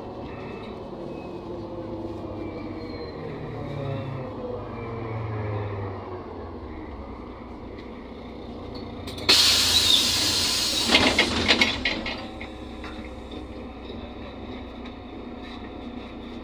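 NefAZ 5299 city bus with a Cummins ISBe diesel engine running, heard from inside the cabin. About nine seconds in, a sudden loud hiss of compressed air from the bus's air system lasts about three seconds and ends with a few sharp puffs.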